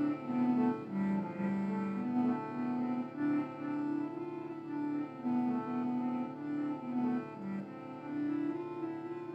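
Slow instrumental music: a melody of held low notes, changing about every half second, over a steady sustained drone.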